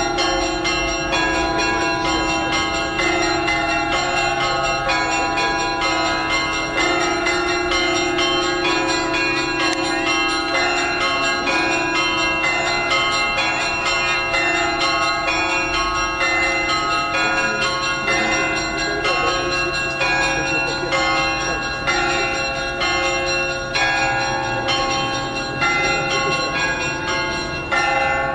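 Russian Orthodox church bells rung in a festive peal after the Sunday liturgy: several small bells struck in a quick, rhythmic pattern over the deep, sustained ring of a large bell.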